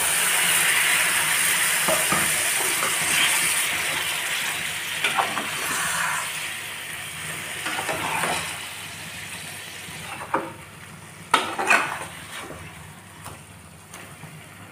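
Brinjal and potato curry in a frying pan sizzling hard as a little water hits the hot masala, the sizzle slowly dying down as it is stirred. Near the end a metal spatula knocks and scrapes against the pan a few times.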